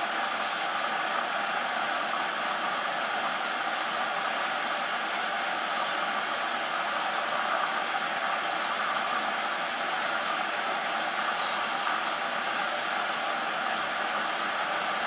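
Hoover washing machine filling with water early in its prewash cycle: a steady rushing hiss of water entering the machine, with a few faint high ticks.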